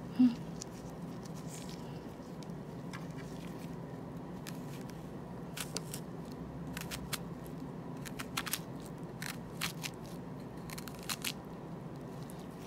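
Kitchen knife slicing through the flesh of a peeled ripe prickly pear, giving scattered short crisp clicks and crunches as the blade cuts through the seedy flesh, over a steady low hum. A single sharp knock comes right at the start.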